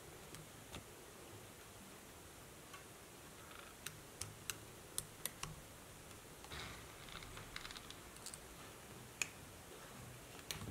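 Light clicks and taps from hand work on a small wooden chopstick RC car chassis and its screwdriver: a quick run of about six sharp clicks a little under halfway through, a brief rustle just past the middle, then one more click.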